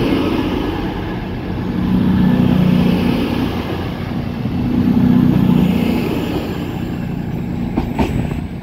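CrossCountry Voyager diesel multiple unit running past along the platform, the low drone of its underfloor diesel engines swelling and fading three times as its cars go by. A sharp knock comes near the end as the last car passes.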